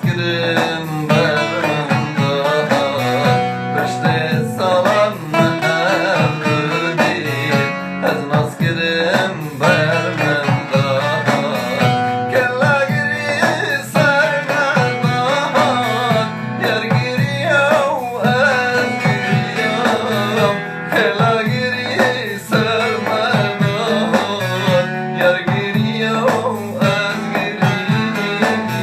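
Kurdish song: a singing voice over plucked string instruments, playing continuously.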